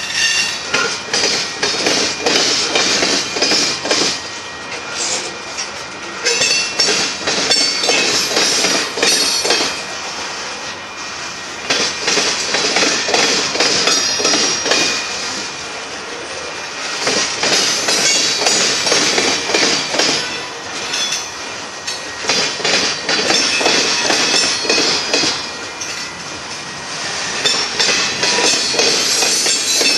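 Covered hopper cars of a freight train rolling past: steel wheels clacking over rail joints with high wheel squeal at times, the noise swelling and easing every few seconds as each car's trucks go by.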